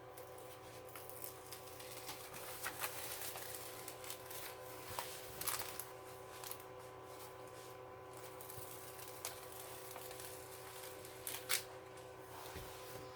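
Rustling and crinkling of a diamond painting canvas and its plastic cover film being handled and checked, with a few sharper crackles, over a faint steady hum.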